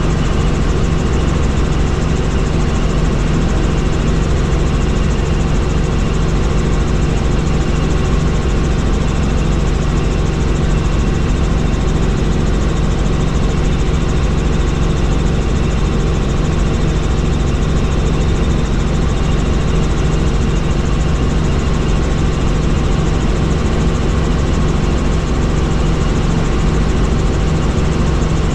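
Helicopter in flight, its engine and rotor making a loud, steady drone that does not change.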